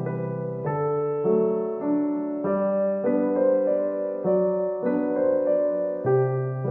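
Background piano music, with notes and chords changing roughly every half second.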